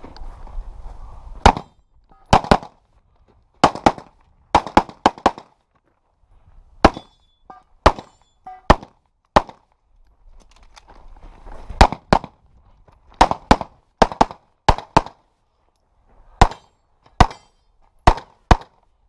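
Semi-automatic pistol fired rapidly, about two dozen shots, mostly as quick double taps, with short pauses between groups of shots.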